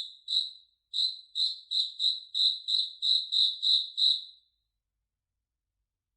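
A cricket chirping: a string of about a dozen short, clear, high-pitched chirps, roughly three a second after a brief gap following the first two. The chirps stop about four and a half seconds in.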